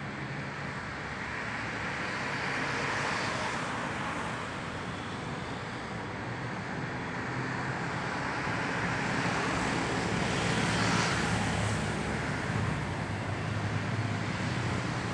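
Road traffic on a multi-lane city road, cars and motorcycles driving past in a steady rumble. The sound swells as vehicles pass, loudest about ten to twelve seconds in.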